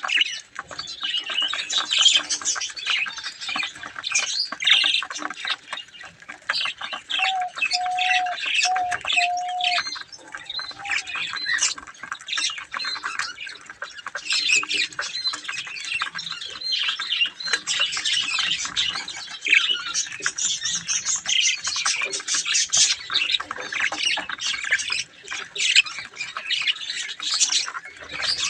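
A flock of budgerigars chattering and squawking continuously in a dense, overlapping stream of chirps. About seven seconds in, four short steady lower notes sound through the chatter.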